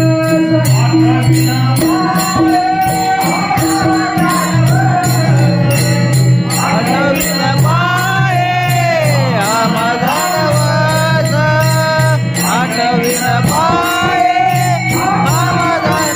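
Marathi devotional bharud song: a male voice singing a long, bending melody over a steady held harmonium drone, with jingling metallic percussion keeping a quick, even beat.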